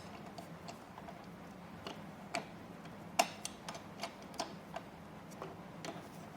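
Irregular light clicks and taps, one to three a second, from parts and tools being handled while an office chair is bolted together. The loudest taps come about two and a half and three seconds in, over a faint steady low hum.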